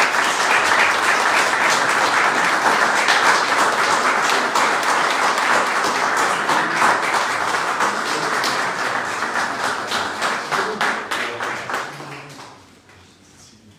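A small audience applauding: dense clapping that dies away about twelve seconds in.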